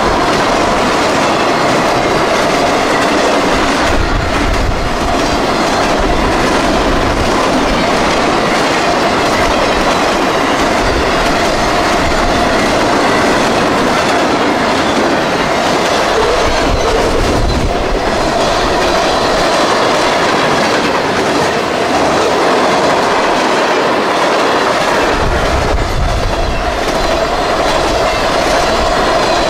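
Long CSX freight train rolling past loud and steady, its car wheels clattering over the rail joints.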